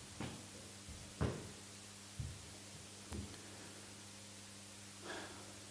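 Slow footsteps on a carpeted stage platform: about four soft thumps roughly a second apart, over a faint steady electrical hum.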